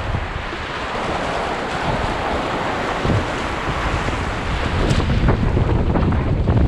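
Whitewater rapids rushing around a packraft, with paddle and wave splashes and wind buffeting the camera microphone. The splashing gets a little louder and busier in the second half.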